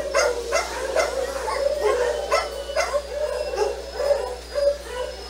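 Dog barking and yipping in short, repeated calls, about two a second.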